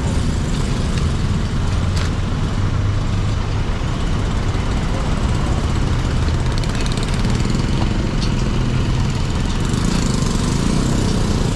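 Motor vehicle engines idling in street traffic: a steady low hum with road noise, and a couple of faint clicks.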